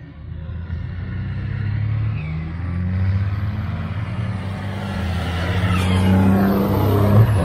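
Diesel semi-truck engines racing down a drag strip under full throttle. A deep engine drone whose pitch steps up and down grows louder, peaking about seven seconds in, with a high whine near the end.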